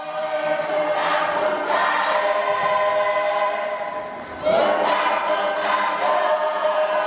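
Choir singing long held chords in harmony, the sound swelling in at the start. It eases off briefly, then comes back stronger on a new chord about four and a half seconds in.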